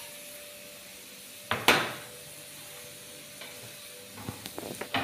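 Chopped onion and garlic sautéing in olive oil in a steel frying pan on a gas burner, a steady low sizzle. A short louder burst comes about a second and a half in, and a wooden spoon knocks lightly against the pan as it stirs near the end.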